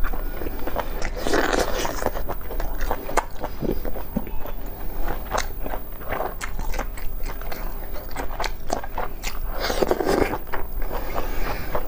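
Close-miked eating of sticky braised meat: biting and chewing with many small wet clicks and smacks of the mouth, with louder bites about a second and a half in and around ten seconds in.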